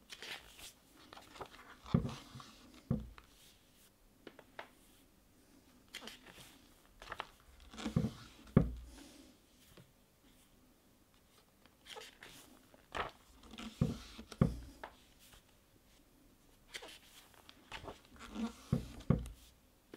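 Pages of a thin stapled paper booklet being turned by hand: short paper rustles with soft thumps as each page is laid flat, in clusters a few seconds apart.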